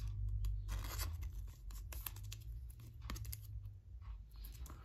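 A soft plastic card sleeve crinkling and scraping as a trading card is slid into it and handled, in several short rustles over a low steady hum.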